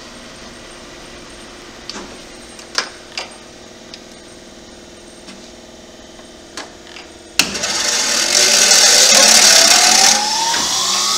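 Cincinnati cylindrical grinder running with a steady hum, with a few light clicks as its controls are worked. About seven seconds in, the internal grinding spindle switches on with a sudden loud hiss, and its whine rises steadily in pitch as it spins up. The hiss eases off near the end.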